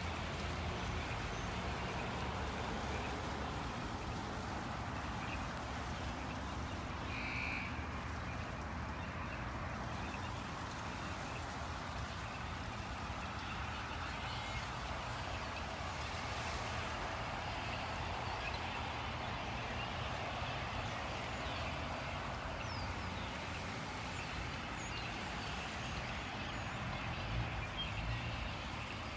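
Steady, dense chatter of a large flock of birds in a murmuration, over the low rumble of road traffic.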